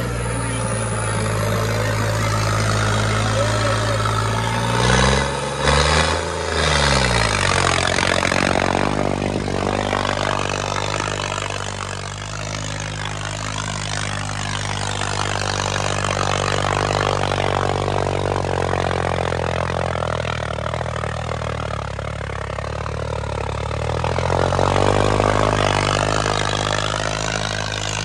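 Tractor diesel engine running hard and steady. Its speed dips and picks back up about five to seven seconds in, and rises again near the end.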